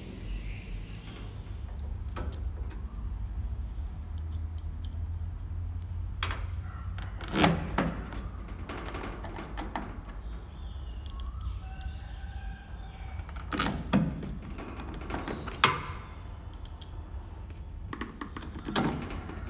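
Scattered knocks, clicks and taps of hand tools and metal parts being handled while a kitchen range hood's bracket and sheet-steel housing are fitted, over a steady low hum. A heavier knock comes about seven seconds in and a sharp click about fifteen seconds in.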